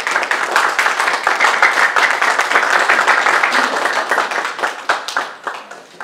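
An audience applauding, the clapping thinning out and dying away over the last second or so.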